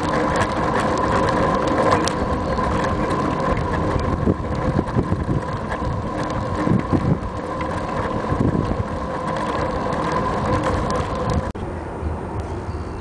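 Ride noise from a camera mounted on a moving bicycle: steady rumble and rattle from the mount, with wind on the microphone and occasional sharp knocks over bumps. The sound drops and changes abruptly about eleven and a half seconds in.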